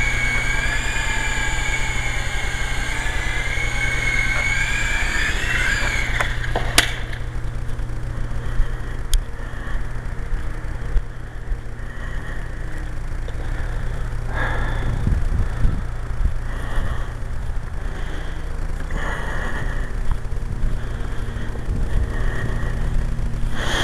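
Syma S033G coaxial RC helicopter's small electric motors and rotors whining, the pitch wavering up and down with the throttle. About seven seconds in the whine cuts out with a sharp knock. After that a steady low rumble of wind on the microphone goes on, with a few soft knocks.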